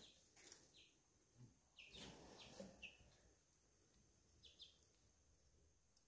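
Near silence with a few faint, short peeps from young chicks, spread out with gaps between them.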